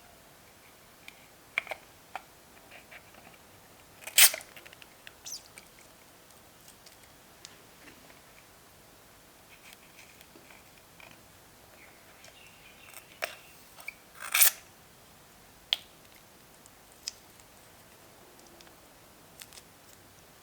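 Scissors snipping into mini balloons, with two louder short rasping cuts about four and fourteen seconds in and scattered small clicks of handling between them.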